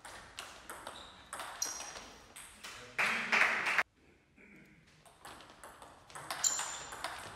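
Table tennis rally: the celluloid-type ball clicking off the rubber bats and bouncing on the table in a quick run of sharp pings. A brief loud burst of noise about three seconds in ends the point, and after a short pause a new rally starts with the same rapid clicks.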